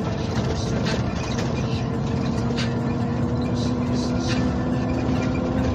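Diesel engine of a truck running under way, heard from the cab as a steady drone whose pitch creeps up slightly while it pulls, with a few faint ticks and rattles.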